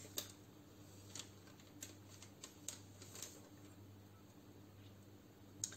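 Faint handling of a paper till receipt: a few soft crinkles and ticks about a second apart, with a slightly sharper one near the end.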